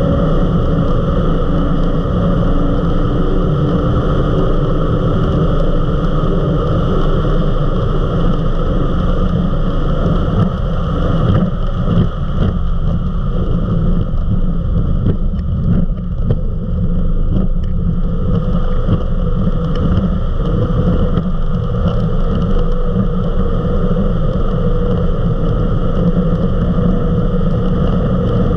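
Eliminator 31 XO Speedster performance powerboat running flat out at around 70 mph, a loud, steady engine drone mixed with rushing wind and water. The sound turns rougher and more uneven for several seconds around the middle.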